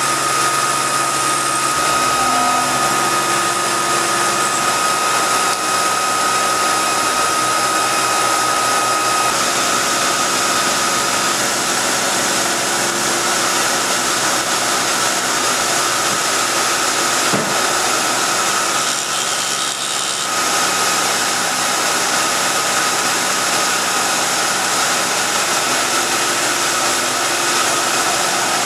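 CNC milling machine cutting the ramp of a billet snowmobile clutch helix with an end mill under flood coolant. The spindle and cutter give a steady whine over a noisy hiss. A clear high tone fades out about a third of the way in.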